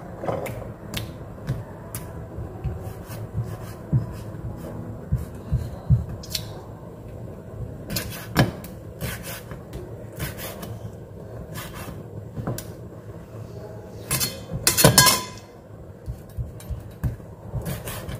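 Broad-bladed kitchen knife slicing squid on a wooden cutting board: irregular taps and knocks of the blade against the wood, with one louder rasping scrape lasting under a second about three-quarters of the way through.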